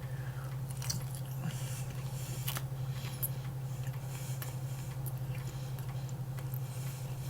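A person chewing a dense meat snack stick, with small irregular clicks and mouth sounds over a steady low hum.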